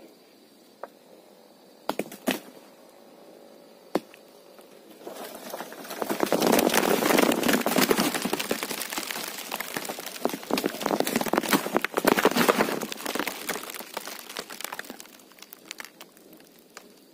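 Amla tree branches being shaken: a dense rustling and crackling of leaves and twigs, thick with sharp ticks, starting about five seconds in and running for about ten seconds before fading, with a few separate snaps before it.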